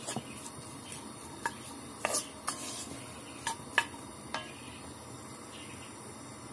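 Wooden spoon stirring chopped onions in oil in a pot, with scattered short knocks and scrapes as the spoon strikes the pot.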